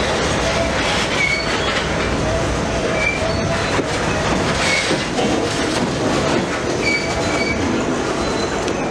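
Freight cars rolling past on steel rails: a steady rumble and clatter of wheels, with short high-pitched wheel squeals several times.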